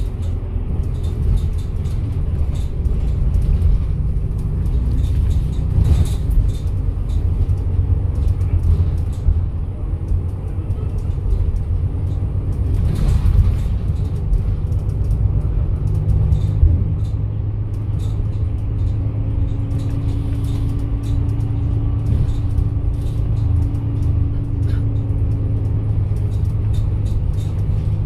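Cabin noise of a double-decker bus under way: a steady low engine and road rumble, with scattered light rattles and clicks. From a little past halfway, a steady low hum joins in.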